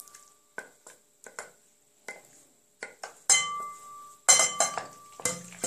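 A utensil clinking and knocking against a bowl while béchamel sauce is spooned onto cooked pasta: a string of light, sharp clinks. One rings on for about a second midway through.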